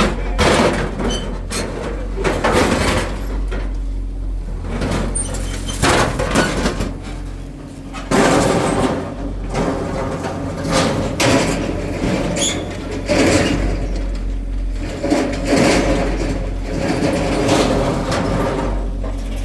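Heavy construction machinery at work: a diesel engine running steadily under repeated loud grinding, scraping surges about every one to two seconds.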